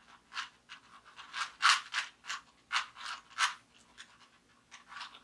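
Rubik's Cube layers being turned by hand in quick succession: a rapid series of short plastic scrapes and clicks, roughly three a second, easing off briefly near the end, as the middle layer is solved.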